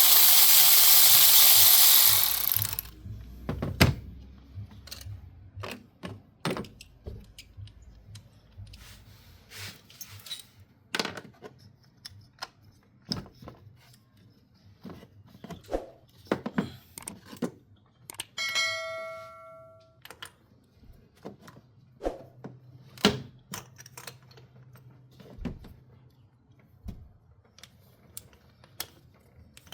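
Hand tools working on a car engine during a spark plug change: scattered clicks and knocks of metal tools and parts. A loud hiss runs for the first two and a half seconds, and a short ringing tone sounds about 18 seconds in.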